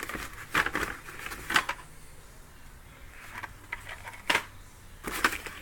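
Packaged Hot Wheels die-cast cars on plastic blister cards being handled and sorted, giving irregular plastic clicks, clacks and crinkles, with a few sharper clacks scattered through.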